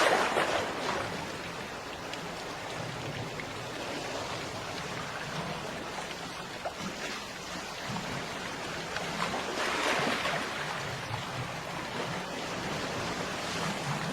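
Ocean waves washing onto a beach: a steady rushing hiss of surf that swells as waves break, just at the start and again about ten seconds in.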